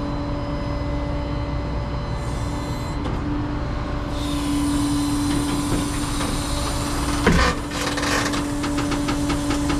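A truck running with a steady hum. One sharp clank comes about seven seconds in, followed by a run of quick clicks near the end.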